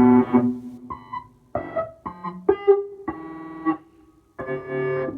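Buchla 208 Music Easel synthesizer sounding a series of separate short notes, each at a different pitch, with gaps between them. Each note is gated open by touching the tip of a patch cable in the aux input, through the envelope detector.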